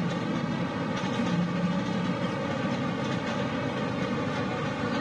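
Heavy machinery running with a steady, even drone that holds the same level throughout.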